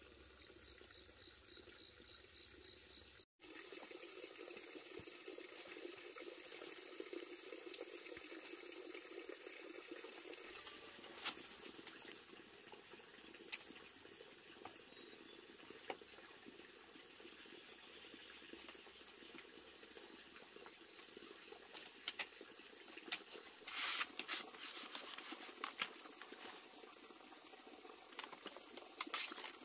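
Insects chirping in rapid, even pulses over a steady watery hiss. Scattered light clicks and clatter come from split bamboo strips being handled and laid into a woven mat, most of them from about two-thirds of the way in.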